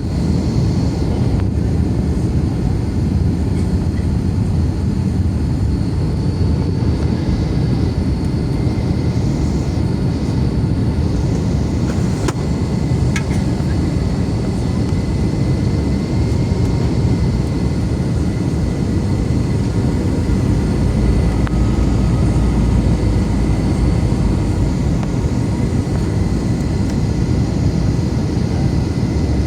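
Airliner cabin noise in flight: the steady low rumble of the engines and rushing air, with a faint high whine above it.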